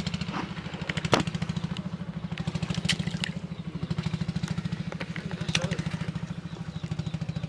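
Boat engine running at idle with a fast, even chug, about eight beats a second. A sharp knock comes about a second in, with a few lighter clicks later.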